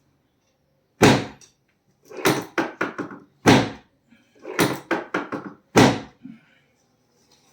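Heavy thuds and knocks of chiropractic adjustments: three loud thumps about one, three and a half and nearly six seconds in, with quicker runs of smaller knocks between them.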